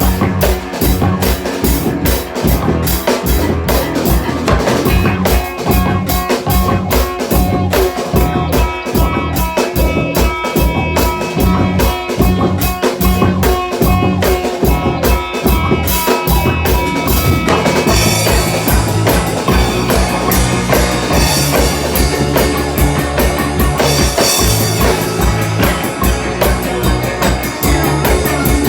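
A band rehearsing an instrumental rock piece: drum kit with bass drum and rimshots driving a fast steady beat under guitar, the arrangement shifting to a fuller, denser section about two thirds of the way through.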